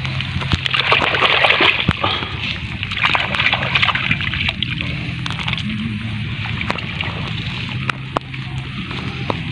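Hands splashing and sloshing in shallow water among weeds, groping underneath for freshwater snails. The splashing comes in louder bursts over the first three seconds or so, then turns to quieter small splashes and rustling.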